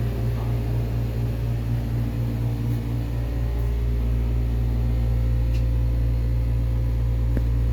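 Hotel room air-conditioning unit running with a loud, steady low hum, the noise of a unit the guest calls broken. The hum grows a little deeper and louder about three seconds in.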